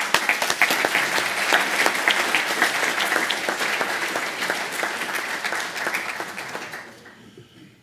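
Audience applauding, dense clapping that tapers off and dies away about seven seconds in.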